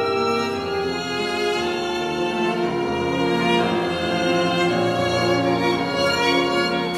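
Orchestral concerto music, with violin and cello playing sustained bowed lines over the orchestra.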